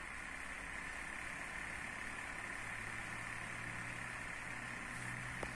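Epson L805 inkjet printer, converted for DTF printing, running with a steady whir as it takes in a print job, before the print head starts laying down ink.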